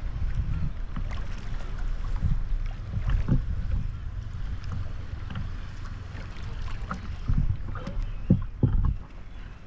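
Water splashing and lapping around a camera held at the surface by a swimmer, with a steady low buffeting on the microphone. A few sharper splashes come about three seconds in and again near the end.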